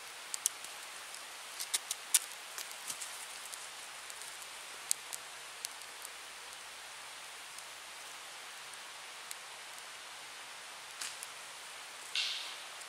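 Small fire crackling in a wooden Swedish torch as its resin burns: scattered sharp pops, thick in the first few seconds and then sparse, over a faint steady hiss. Near the end, a short rustling scrape.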